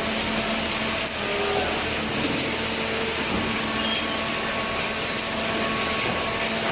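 Paper baler machinery running, a steady mechanical drone with a constant low hum.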